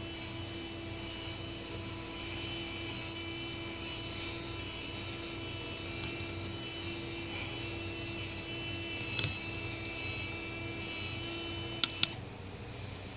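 Small electric winch motor on an RC crawler running with a steady whine, cutting off about twelve seconds in, right after two sharp clicks.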